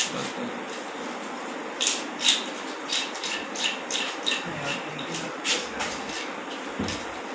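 Knife blade scraping the scales off a large river fish in quick repeated strokes, about two or three short rasps a second, starting about two seconds in.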